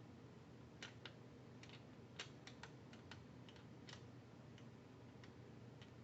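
Faint, irregular light clicks from a gun safe's combination dial being turned slowly to a number, over a low steady hum.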